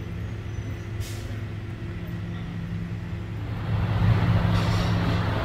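Heavy truck engine running steadily with a low hum, getting louder about four seconds in.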